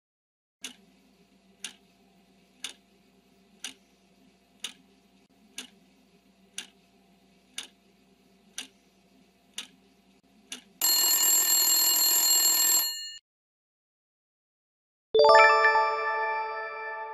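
Quiz countdown-timer sound effect: a clock ticking once a second, about ten times, over a faint low hum, then about two seconds of loud alarm-like ringing that stops suddenly. About two seconds later a single bright chime rings out and fades, marking the answer reveal.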